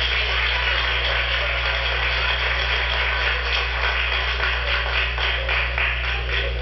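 Crowd applauding, a dense clatter of many hands clapping, over a steady low electrical hum.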